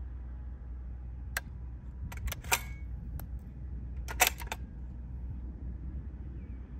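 A few sharp clicks and clacks from handling the rifle on its tripod: a single click, then two short clusters about two seconds apart, the second the loudest, over a low steady rumble.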